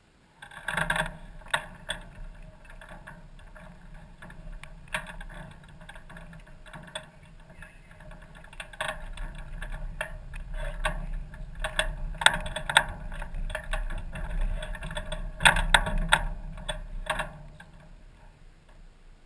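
Hy-Tek Hurricane 103 ultralight being wheeled by hand with its engine off: the tube-and-fabric airframe rattles and knocks irregularly over a low rumble of the wheels rolling. The clatter starts suddenly, is busiest and loudest near the end, then dies away.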